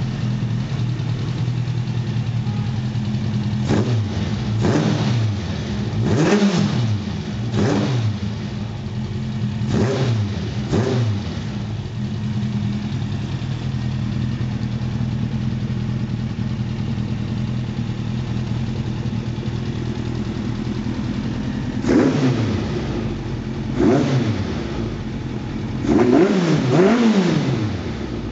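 Suzuki GSF1200 Bandit's inline-four engine idling through a stainless 4-1 exhaust with a Beowulf short end can, with stage 3 air filters and carb jets. The throttle is blipped in short revs that rise and fall quickly: about six in the first eleven seconds, then a few more in the last seven seconds, the final ones close together.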